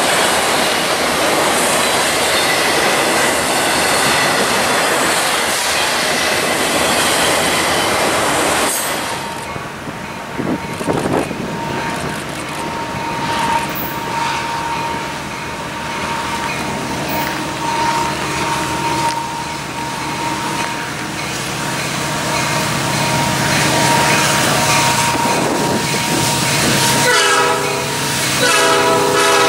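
Freight train of autorack cars rolling past close by, with wheel clatter, ending about a third of the way in. Then a steady ringing tone, a grade-crossing bell, sounds while a second freight approaches. Near the end its lead locomotive, an Illinois Central SD70, blows its multi-chime horn in short blasts.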